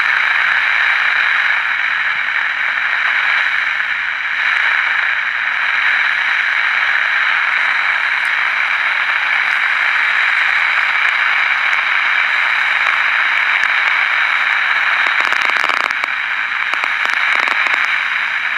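Steady static hiss from a 1967 Zenith Royal 51 transistor radio's speaker, with no station coming through, and a few crackles near the end.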